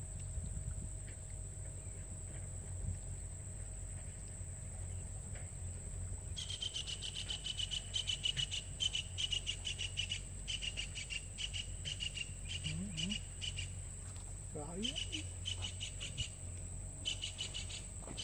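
Insects calling: a steady high-pitched buzz throughout, joined about six seconds in by a louder, fast-pulsed chirping trill that comes in several bouts with short breaks.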